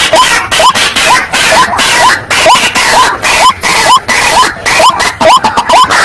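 White-breasted waterhen (ruak-ruak) calling: a loud, unbroken run of harsh croaking notes, each with a short rising note, about three a second. It is the call used as a lure for trapping wild waterhens.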